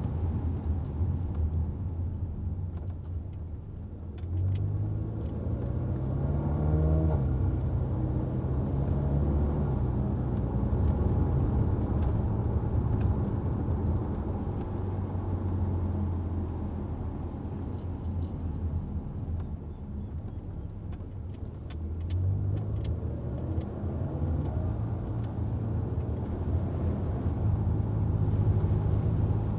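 A car driving, with a low engine and road rumble. The engine note climbs as the car speeds up a few seconds in, and again about two-thirds of the way through.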